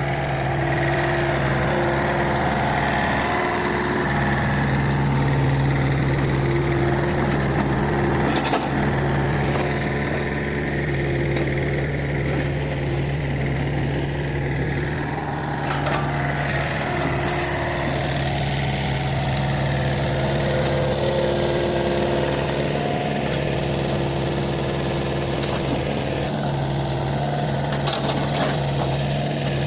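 Kobelco SK 50 P mini excavator's diesel engine running steadily at a constant pitch, with a few sharp clanks now and then.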